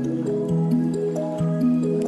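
Background music: a gentle instrumental melody of held notes that change pitch about twice a second.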